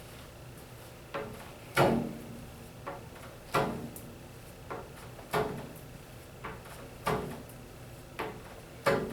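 Squeegee strokes over window film on a glass pane, each stroke heard as a short pair of sudden scraping knocks, a light one then a louder one. About five strokes come at an even pace, roughly one every second and three quarters.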